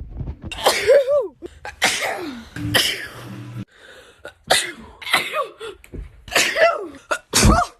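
A young woman sneezing about six times in quick succession, allergy sneezes. Each one is a sharp burst with a voiced 'choo' that falls in pitch.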